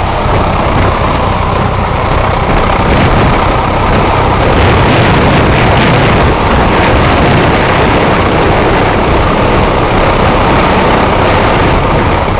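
Engine and propeller of a single-engine light aircraft, heard from inside its cabin, running steadily with a low hum; it gets a little louder about four seconds in.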